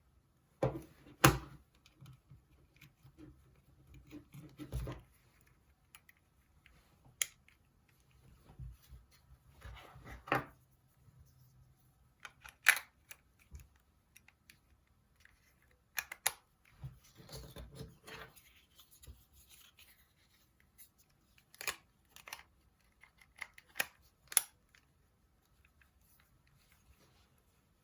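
Handling noise from a Nokia 6260 phone being held and its keys pressed: scattered sharp clicks, with a few short scraping rubs around five, ten and seventeen seconds in.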